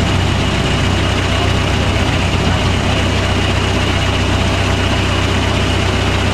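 Off-road 4x4's engine running steadily at low revs as the truck crawls over wet rock ledges.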